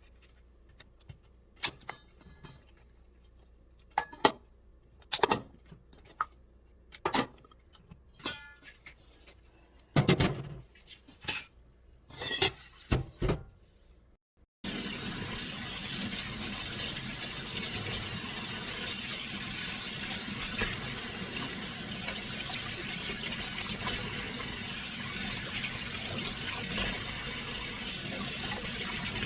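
Scattered sharp clicks and knocks of kitchen handling. Then, about halfway through, tap water starts suddenly and runs steadily into a sink, where shiitake mushrooms are being washed.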